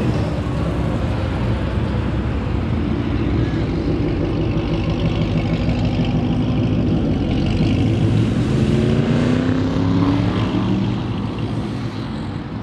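Dodge Challenger V8 exhaust rumbling as the car rolls off at low speed. The revs rise about eight seconds in as it pulls away, then the sound fades as it drives off.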